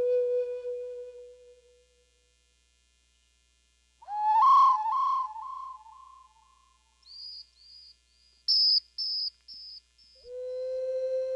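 Meditation music on wind instruments. A held Native American flute note fades out, and after a pause of about two seconds comes a run of short pitched notes that die away. Then about eight short, high whistled peeps sound, and just before the end a low sustained flute note swells in.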